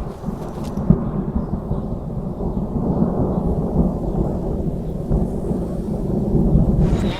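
A deep, continuous low rumble that swells about three seconds in, with a few sharp cracks in the first second.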